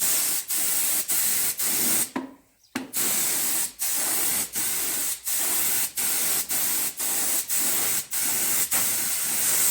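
Compressed-air spray gun hissing as it sprays a finish onto wooden chairs. The spray is cut by short breaks roughly every half second, and stops for a longer pause about two seconds in.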